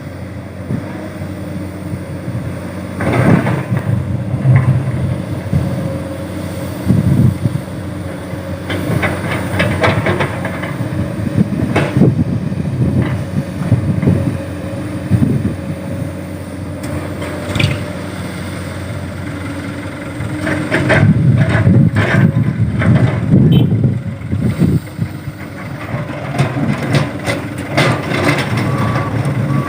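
Komatsu hydraulic excavator engine running under load, with bursts of clattering knocks as hard rocky soil is scooped and dropped into a dump truck's steel bed. A reversing alarm starts beeping near the end.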